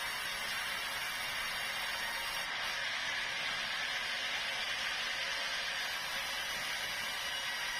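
Sawmill saw running steadily on a large meranti log: a constant, even hiss with faint steady tones.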